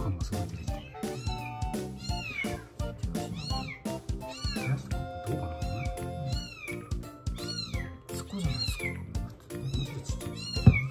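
Young kitten mewing while it suckles milk from a feeding bottle: short, high, arching squeaks roughly once a second, over background music.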